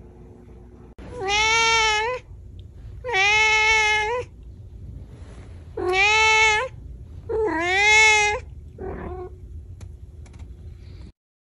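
A domestic cat meowing four times, each a long drawn-out meow lasting about a second, with short pauses between them.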